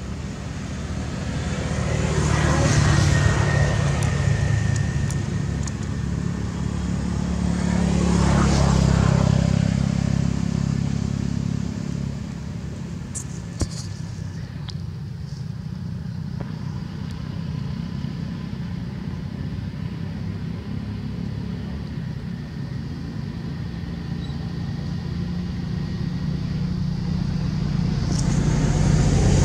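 Road traffic: a steady low rumble with vehicles passing, swelling and fading about three seconds in and again about nine seconds in, and building once more near the end.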